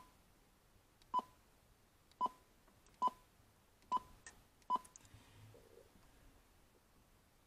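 CB radio's key beeps: a short electronic beep at each press of a front-panel button while the radio is being tuned, six in about five seconds, then they stop.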